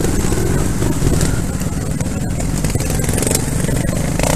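Trial motorcycle engines running at low, fairly steady revs with a rapid, even firing pulse, and a few short knocks.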